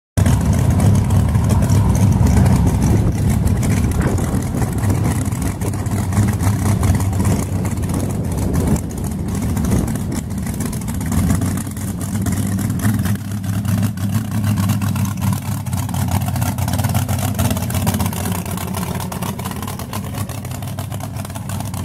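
Loud engine of a modified pulling truck running steadily at an even speed, with no revving.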